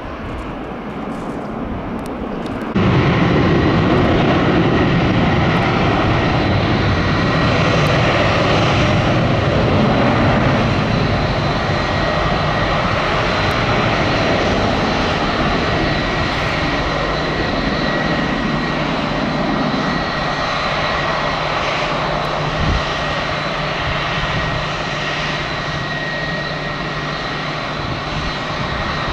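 Embraer 170 twin turbofan jet engines at takeoff thrust during the takeoff roll and climb-out: a steady jet noise with a high whine that slowly fades as the plane moves away. About three seconds in, the sound cuts in suddenly from a quieter jet sound.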